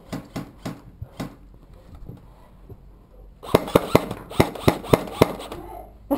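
Airsoft guns firing in a barn: a few sharp shots in the first second, then after a short lull a quick string of about eight shots, roughly four a second.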